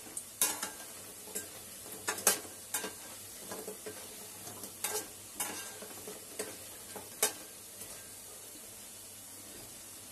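Besan pakoras sizzling in hot oil in a metal kadhai while a spoon stirs them, scraping and clinking against the pan. The clinks stop about seven seconds in, leaving the steady sizzle.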